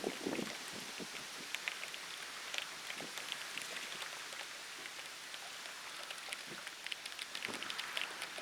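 Steady outdoor hiss with scattered light ticks, the ambience of a pondside before a typhoon.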